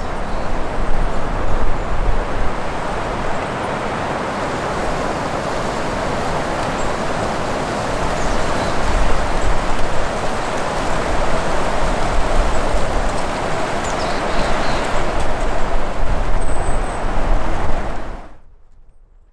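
Strong gusty wind blowing and buffeting the microphone, a loud rushing noise with a deep, fluctuating rumble that swells and eases. It cuts off abruptly near the end.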